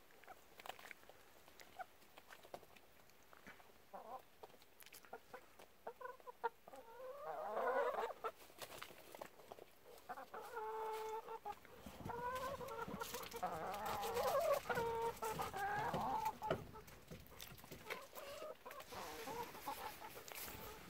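Hens clucking and squawking as they crowd in begging for food, loudest in a stretch about a third of the way in and again past the middle, with small scattered clicks of pecking and scratching.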